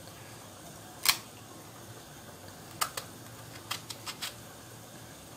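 Kitchen knife cutting slits into small whole brinjals (eggplants) held in the hand: a series of short crisp clicks, the loudest about a second in, then a cluster of smaller ones between about three and four and a half seconds in.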